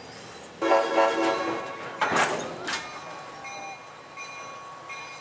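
Short blast of a diesel locomotive's chime horn, the Nathan M5 on ex-Reading SW1200 switcher #1202, lasting about a second and starting about half a second in. About two seconds in there is a sudden sharp crack, followed by the steady rolling sound of passenger cars on the rails.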